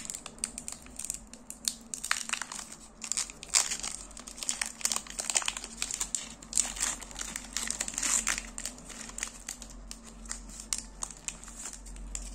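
Foil Pokémon booster pack wrapper being crinkled and torn open by hand: irregular crackling of the foil, thinning out near the end.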